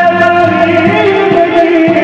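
Men's voices singing durood pak in long, held notes, with a drum beating steadily underneath at about two to three beats a second.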